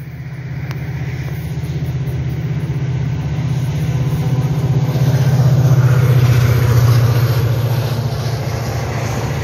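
Diesel-electric freight locomotive working hard up a grade under load, its deep, throbbing engine note growing louder as it approaches and passes close, loudest about six to seven seconds in.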